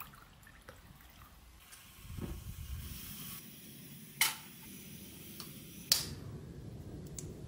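Faint cooking-handling sounds over a low steady rumble: a short clink as a frying pan is set onto a camping stove about four seconds in, then another sharp tap about two seconds later.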